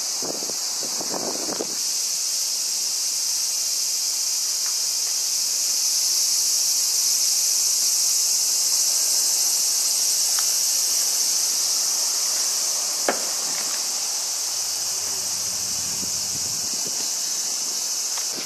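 A summer chorus of cicadas in the trees: a steady, high-pitched buzz that swells a little in the middle, with a single sharp click about two-thirds of the way through.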